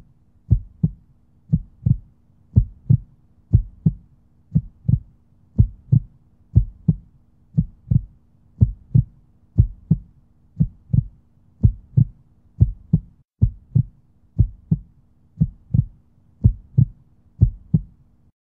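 Heartbeat sound effect: paired low thumps, about one beat a second, over a faint steady hum.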